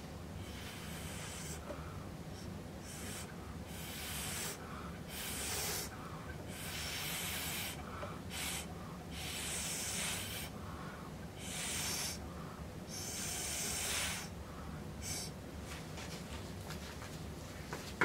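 Several short bursts of blown air, each about a second long with pauses between, pushing wet acrylic pour paint across the canvas.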